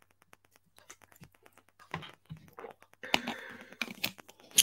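Typing on a computer keyboard: a quick run of light key clicks, busier and louder from about three seconds in.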